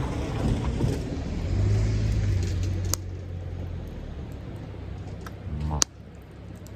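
A low rumble that swells about two seconds in and then fades, with a sharp click partway through and a louder click near the end.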